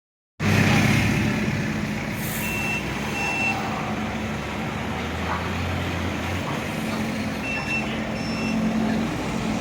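Senfeng CNC laser cutting machine running: a steady mechanical hum and hiss, with a few short high beeps.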